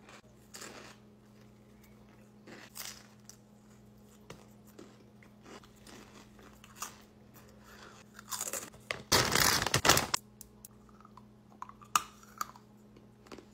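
Close-miked eating sounds: soft bites, chewing and wet mouth clicks on a sub sandwich. About eight seconds in comes a loud, noisy rustle lasting a second or two, the plastic snack pouch being handled, followed by a few more small clicks.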